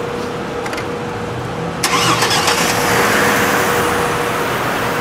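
Chevrolet Trailblazer engine being started: after a short crank it catches suddenly about two seconds in and settles into a steady run. The engine has a misfire that is being traced to a bad ignition coil.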